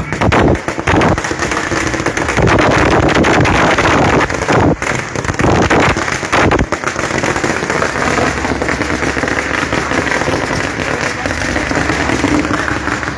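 Firecrackers going off in a rapid, continuous crackle of bangs.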